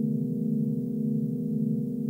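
Hand-forged Nepalese singing bowls ringing in a steady, sustained drone of low tones, with an even pulsing waver.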